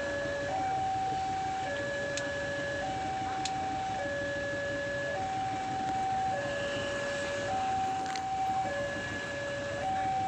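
Railway level-crossing alarm sounding a two-tone electronic siren, switching between a higher and a lower tone about once a second in a steady repeating cycle, over steady background noise with a few faint clicks.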